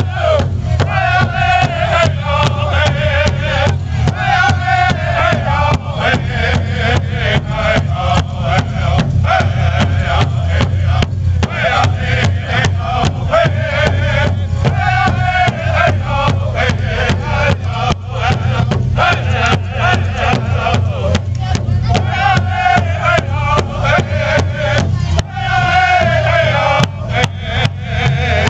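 A pow-wow drum group singing an intertribal song: several men singing in unison over a steady, even beat that they strike together on one large shared drum.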